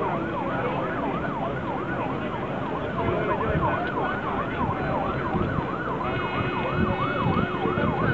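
A siren rising and falling quickly, about three cycles a second, over the noise of a large group of cyclists riding together. A second, steadier tone joins about six seconds in.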